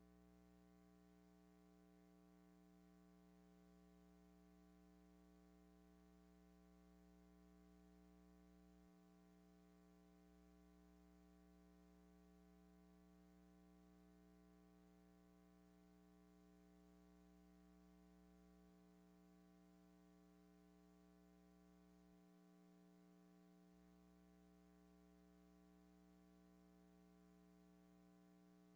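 Near silence: a faint, steady electrical hum with light hiss, the film having no soundtrack.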